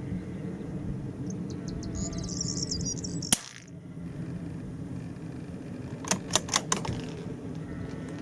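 A single .22LR rifle shot, one sharp crack about three seconds in, fired at a steel target around 370 metres off. A few seconds later come four quick clicks in a row, the rifle's bolt being worked to chamber the next round.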